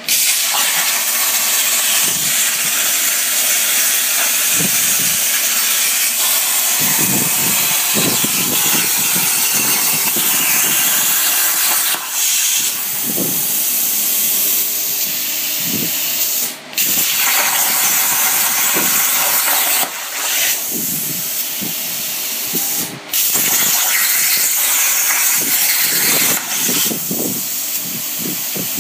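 CNC plasma cutter cutting 3/16-inch steel: a loud, steady hiss from the arc and air jet. It breaks off briefly a few times and restarts as the torch stops between cuts.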